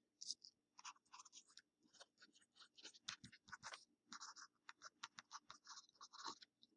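Faint scratching of a pen writing by hand on a paper worksheet, in many short, uneven strokes.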